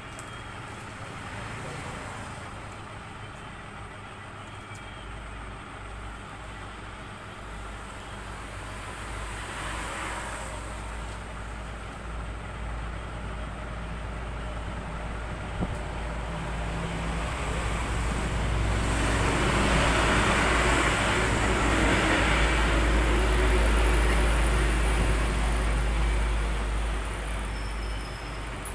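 Road traffic going by: a steady low engine rumble, swelling as a vehicle passes about ten seconds in and growing louder again as a heavier vehicle passes from about eighteen to twenty-six seconds.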